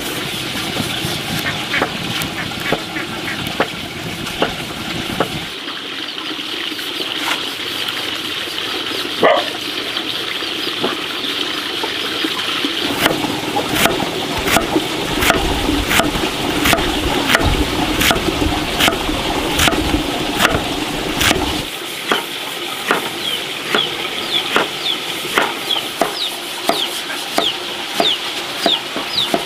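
Knife chopping fresh bamboo shoot on a wooden chopping block, sharp strokes about twice a second through the second half. A wood fire crackles in the first few seconds, and chickens cluck in the background.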